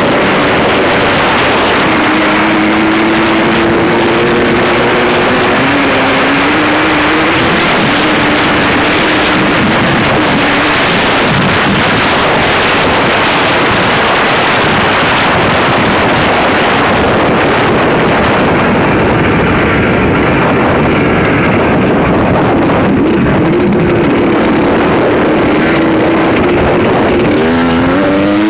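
Suzuki RM125 two-stroke dirt bike engine running under way, its pitch rising in steps during the first ten seconds and swinging quickly up and down in revs near the end, over heavy wind rush on the microphone.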